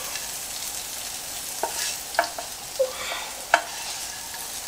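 Shrimp sizzling in hot oil in a frying pan, a steady sizzle, with a few sharp clicks of a utensil against the pan as the shrimp are lifted out.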